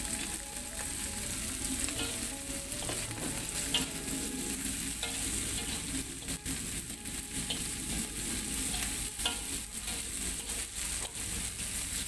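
Spice paste, anchovies and freshly added petai beans sizzling in a hot wok, with a spatula stirring and scraping against the pan in irregular strokes.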